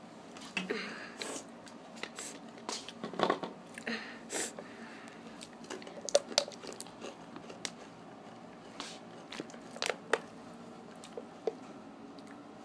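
Takis rolled tortilla chips being bitten and chewed close by, with irregular sharp crunches and crackles.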